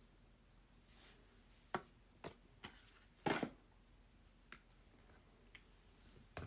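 Makeup packaging being handled: a few short, faint clicks and rustles, the loudest a brief rustle about three seconds in.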